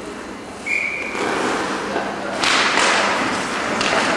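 Ice hockey play in an echoing rink: skates scraping the ice and sticks and puck knocking, with a couple of sharp knocks, under the voices of players and spectators.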